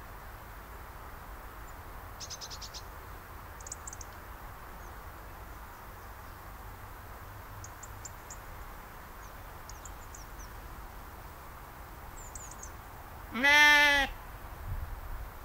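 A sheep bleats once, loudly, near the end: one short call well under a second long.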